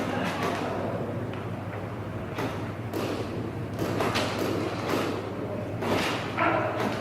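Irregular sharp knocks and thuds echoing in a large indoor hall, typical of airsoft guns firing and BBs striking barricades, with muffled voices underneath.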